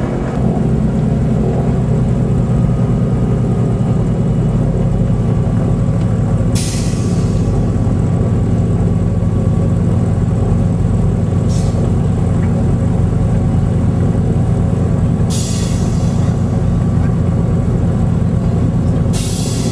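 Steady low drone of a de Havilland Dove's twin piston engines, with four short hissing bursts spread through it.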